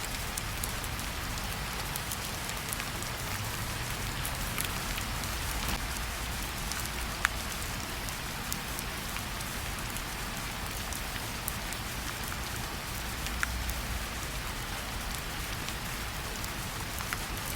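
Steady rainfall, an even hiss of rain with scattered single drops ticking out louder, one sharper tick about seven seconds in.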